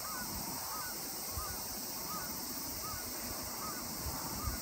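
A bird calling over and over, a short hooked chirp about every three-quarters of a second, over a steady high hiss and low wind thumps on the microphone.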